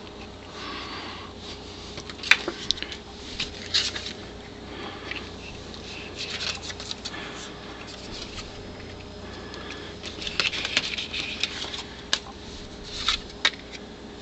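Paper postcards being handled: stiff card rustling and sliding, with a few sharp taps and clicks, over a faint steady hum.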